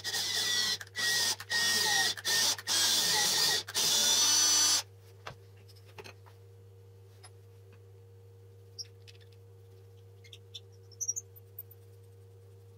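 Cordless drill boring into a small wooden block, run in about six short bursts with brief pauses, then stopping about five seconds in. A few light handling clicks follow.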